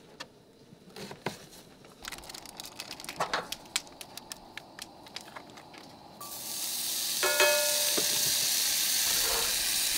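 Peppers and onions crackling in a skillet on a propane camp stove, then about six seconds in a loud, steady hiss sets in as the stove's second burner is turned on. A brief squeal comes about a second after that.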